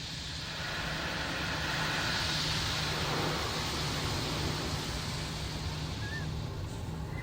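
Steady road and engine noise inside a moving car's cabin: an even rushing hiss over a low hum, swelling slightly in the first few seconds. A brief high chirp sounds about six seconds in.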